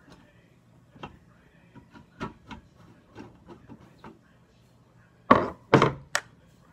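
Rice cooker's plastic housing being handled and taken apart with a screwdriver: scattered light clicks and taps, then two loud knocks with scraping about five seconds in, followed by one sharp click.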